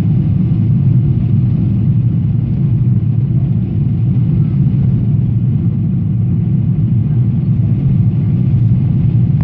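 Steady cabin noise inside a Boeing 777-300ER in flight: a deep, even rumble of its GE90 engines and the airflow past the fuselage, with no change in pitch.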